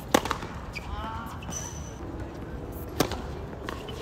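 Tennis ball struck by a racket, two sharp pops about three seconds apart; the second is a slice serve.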